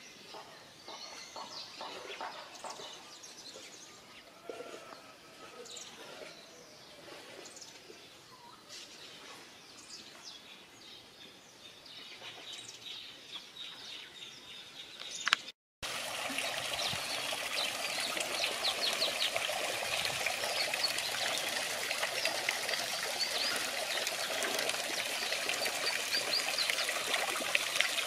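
Small birds chirping and calling. After a brief cut about halfway through, a garden fountain's water comes in, trickling and splashing steadily and louder, with the birds still chirping over it.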